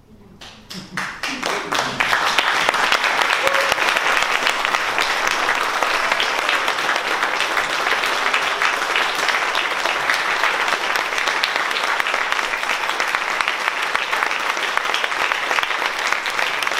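Theatre audience applauding: a few scattered claps that swell within about two seconds into full, steady applause.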